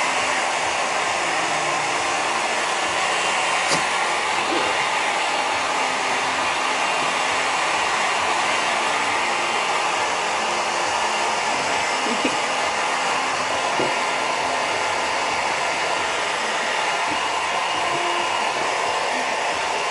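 Handheld hairdryer blowing steadily, its air rushing without a break while a dog's wet fur is dried; a faint click about four seconds in.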